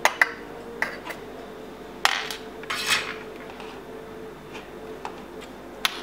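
Light metallic clicks and clinks of tweezers and small tools against a TV main board and the bench, with two short scraping noises about two and three seconds in, over a faint steady hum.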